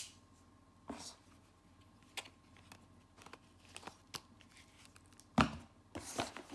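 Folding multitool handled: a sharp metal click as the blade snaps shut, then scattered small clicks and knocks. There is a louder thump about five seconds in, and a cardboard box rustles near the end.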